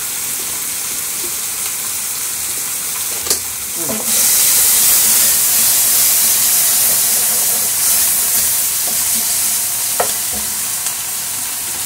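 Chopped onion, garlic, bell peppers and tomato sizzling in oil in a stainless steel pot while a wooden spoon stirs them. The sizzle grows louder about four seconds in and eases off again, with a couple of sharp knocks along the way.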